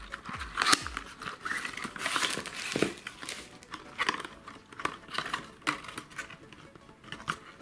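A small cardboard accessory box being handled and opened by hand: irregular rustling and scraping of card with sharp little clicks and taps, the loudest a little under a second in.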